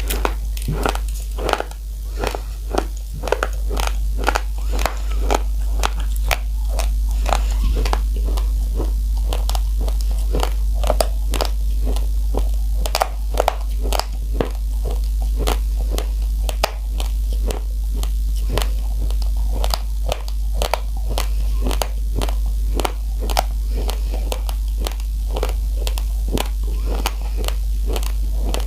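Close-miked chewing of raw, uncooked rice: the dry grains crunch crisply about twice a second, with a steady low hum underneath.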